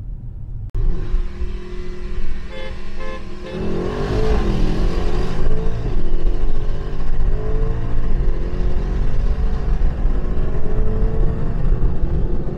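Twin-turbo V8 performance sedan accelerating hard at full throttle, its engine note rising, with heavy wind and road noise. A few short beeps come just before the full acceleration begins, a little over three seconds in.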